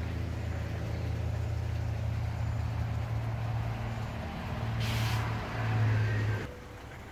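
A steady low mechanical hum, like an engine or motor running, swells about four seconds in. A short burst of hiss comes around five seconds, and the hum cuts off abruptly near the end.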